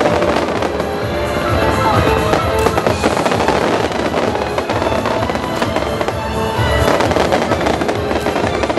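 Aerial fireworks display going off: a dense, continuous run of bangs and crackles.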